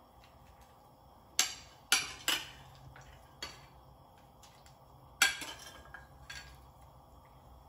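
Metal ladle clinking against the serving bowl and the rim of the soup pot as shrimp are scooped into boiling soup: about six sharp clinks, the loudest about five seconds in.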